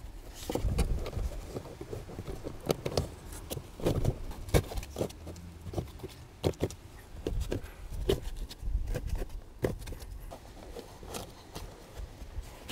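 A new pleated paper cabin filter being slid and pushed into its plastic housing under the dashboard, with scattered knocks, scrapes and clicks of plastic and paper being handled.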